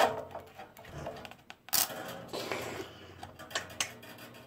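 Steel-on-steel knocks, scraping and clicks as a hand tool pries at a loose bandsaw blade jammed in a plywood table insert. The first knock rings briefly. A louder, harsh scrape comes a little under two seconds in, and a few sharp clicks follow near the end.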